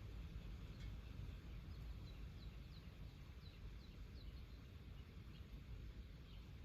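Faint bird chirping: a run of about six short, high, falling chirps a couple of seconds in, with a few fainter ones later, over a low steady rumble.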